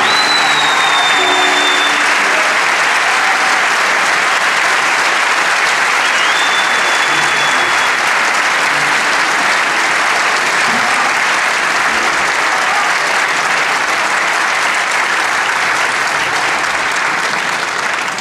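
A theatre audience applauding steadily after a song, fading out near the end.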